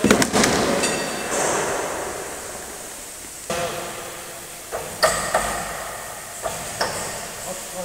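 Slaughterhouse processing-line noise: metal hooks and chains on the overhead carcass rail clanking and squealing over a steady machine hiss, with sharp metallic knocks at the start and again about five seconds in and near the end.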